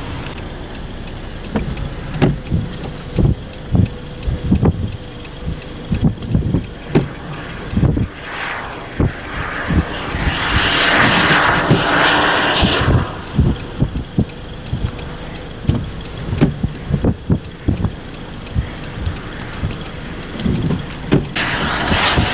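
Road traffic on wet, snowy roads: tyre hiss swells as a vehicle passes about halfway through and again near the end, with scattered low thumps throughout.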